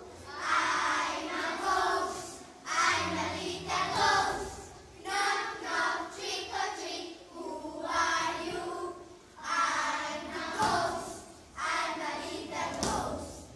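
A group of young children singing together in unison, phrase by phrase with short breaks between the lines.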